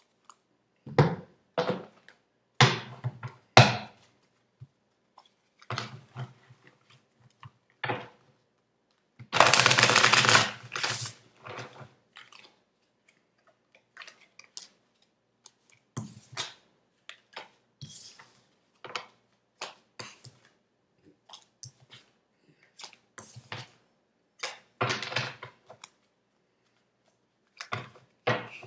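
Tarot cards being handled: a run of irregular short snaps, slides and taps as cards are shuffled, drawn and laid on a wooden table, with a longer, denser rustle of cards about ten seconds in.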